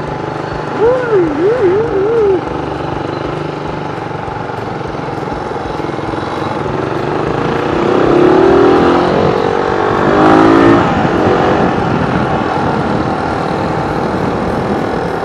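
Suzuki Raider R150's four-stroke single-cylinder engine running under way with road and wind noise, revving up twice as the bike accelerates. A brief warbling, whistle-like tone sounds about a second in.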